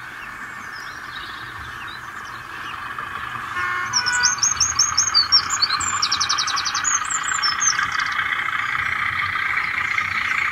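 Birds chirping in quick trills and repeated notes over a steady hiss; the birdsong starts about four seconds in and fades out a few seconds later.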